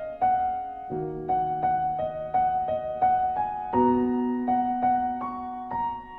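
Solo piano music: a gentle melody of single notes, each struck and fading, over held low notes that change every couple of seconds.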